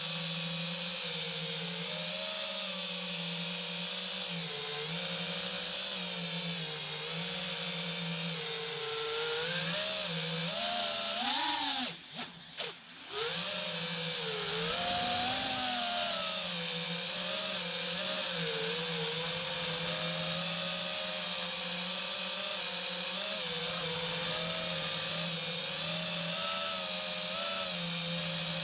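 FPV quadcopter's brushless motors whining, the pitch wavering up and down with the throttle. The pitch climbs about ten seconds in, with a short loud surge and dropouts about twelve seconds in.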